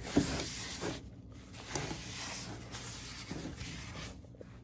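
Paper towel wiping a wet cast iron frying pan dry, in a few scratchy strokes, with one sharp knock near the start.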